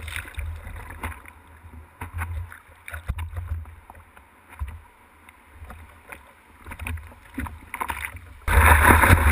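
Sea water sloshing and splashing against a GoPro in its waterproof housing on a surfboard's nose, muffled, with uneven low rumbles. About eight and a half seconds in, a loud rush of whitewater starts abruptly.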